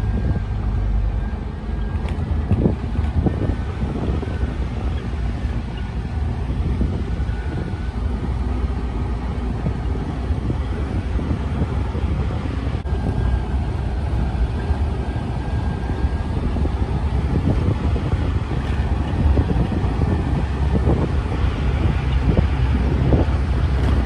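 A vehicle driving on a rough dirt road: a steady low rumble of engine and tyres, with wind buffeting the microphone and occasional low knocks from bumps.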